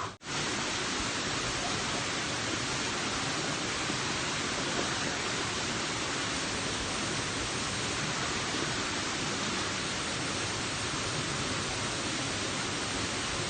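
Waterfall: a steady rush of falling water, even and unchanging throughout.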